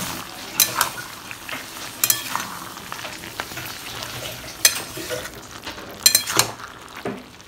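Fish head curry with potatoes and onions sizzling in a metal kadai as it is stirred with a metal spatula. The spatula scrapes and knocks against the pan several times. The curry is frying in the water the onions have given off.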